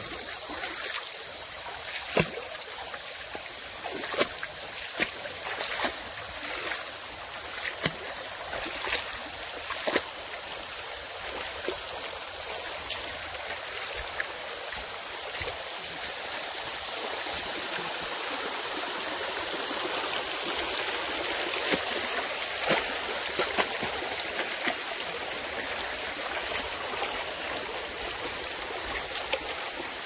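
Shallow rain-fed stream running over a sandy gully bed, a steady babble of flowing water. A steady high-pitched hiss sits above it, and sharp ticks come about once a second for stretches.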